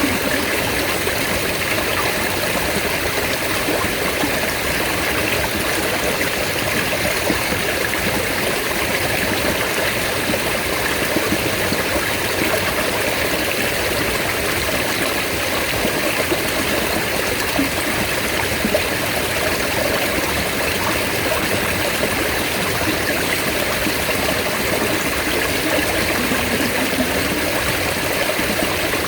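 Mountain stream water flowing steadily over rocks.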